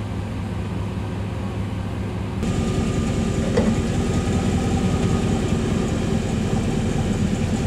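GM pickup engine idling in first gear with the truck on stands, turning the driveshaft and wheels at a few miles an hour through the NP241 transfer case, which is priming its lubrication pump. About two and a half seconds in, the sound switches to a louder, closer take of the turning drivetrain under the truck, with a faint steady whine.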